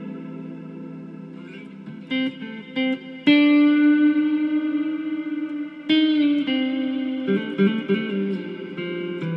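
Electric guitar, a Reverend Manta Ray HB, played clean through a Mr. Black Eterna shimmer reverb pedal into an Alessandro amp. A ringing chord fades, a few short notes follow, then chords are struck about three and six seconds in and left to ring out in a long reverb tail, with picked notes near the end.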